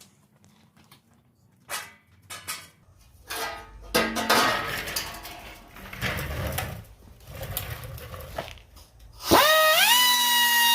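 Sheet metal and tools clanking and knocking as work begins on rusted truck body panels, then a power tool spins up about nine seconds in, its pitch rising quickly and settling into a steady high whine.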